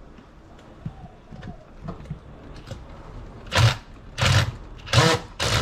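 Cordless power drill driving an outlet screw in short trigger bursts, four brief whirs in the second half, its bit slipping in a screw head that turns out stripped.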